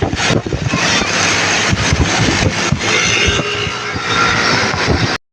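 Vehicle engine and road noise, loud and steady, cutting off abruptly to silence near the end.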